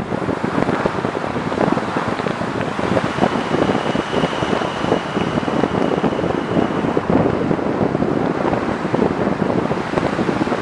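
Loud, steady rush of road and wind noise from a car driving through a road tunnel, with a faint high whine from about two to seven seconds in.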